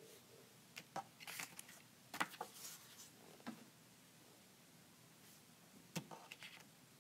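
Paper cards being handled and slid out of a paper phone prototype: short rustles and taps in two bursts, one from about a second in and another near the end.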